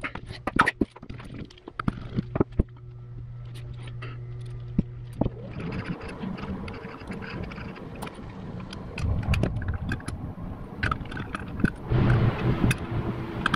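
Metal clicks and clinks of a Subaru EJ25 aluminium oil pump being taken apart by hand: a screwdriver working its stubborn cover screws, then the cover plate and rotor gear handled and set down. A steady low hum runs underneath, giving way to a rougher background noise about five seconds in.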